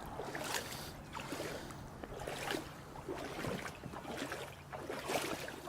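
Floodwater sloshing and splashing in irregular surges.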